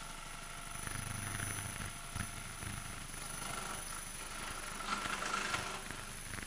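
Ultrasonic vibrating sieve running: a steady low hum from the vibration motor with a thin, steady high whine above it. A brief, louder rattle comes about five seconds in.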